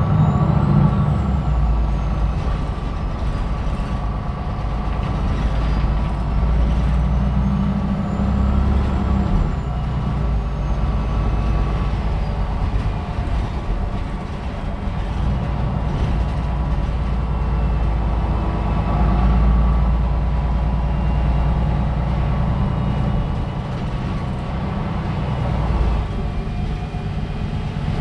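MAN NL313 A21 city bus under way, its diesel engine rising and easing off several times as it pulls away and slows. A faint high whine rises and falls twice.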